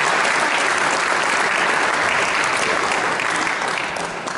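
Concert audience applauding, a dense, steady clapping that begins to thin out and fade near the end.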